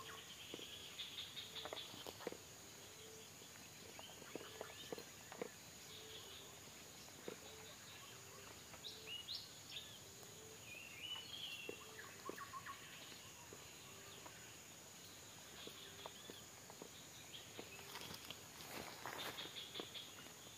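Faint riverside forest ambience: a steady high insect drone. Over it comes a low short call repeated about once a second through the first half, and a few higher bird chirps around the middle, with occasional faint clicks and rustles.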